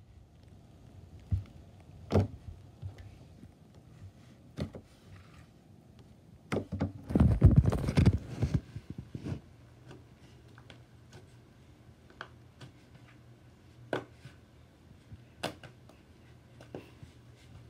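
Hands kneading and stretching pink fluffy slime made from shaving foam and school glue, giving scattered small clicks and pops as air pockets break, with a loud stretch of squishing and crackling from about six and a half to nine seconds in.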